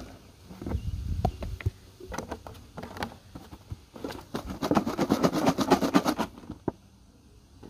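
Plastic bottles, caps and a plastic funnel being handled: scattered clicks and knocks, with a fast run of clicking, about ten a second, for roughly two seconds near the middle.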